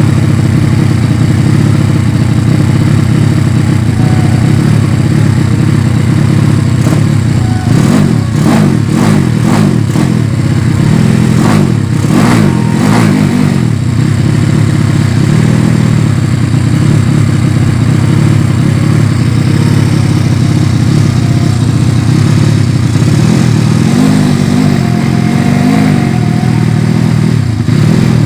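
Yamaha Vega ZR's single-cylinder four-stroke engine, fitted with a Mio cylinder at 200cc, running loudly through an open racing exhaust. It is blipped several times between about 8 and 13 seconds in, and rises and falls again near the end.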